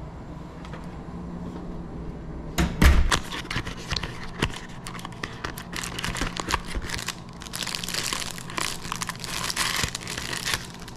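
Plastic wrapping of a hotel toothbrush-and-toothpaste kit being torn open and crinkled, starting with a knock about three seconds in and crackling on continuously after it.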